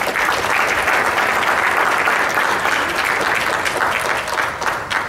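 Audience applauding, many hands clapping together in a steady wash.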